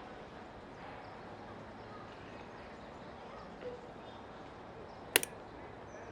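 A single sharp knock or click about five seconds in, with a smaller one right after it, over a faint steady background hiss with a few faint high chirps.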